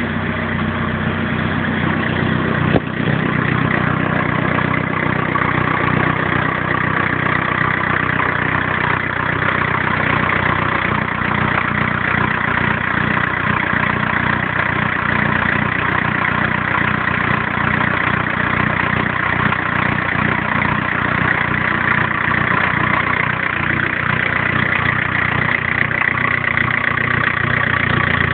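TDS turbodiesel engine idling steadily, with one sharp click about three seconds in.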